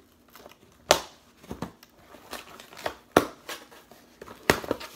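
Hands opening a taped cardboard mailing box: packing tape being picked at and peeled off and the cardboard flap pulled, with several sharp snaps and crackles.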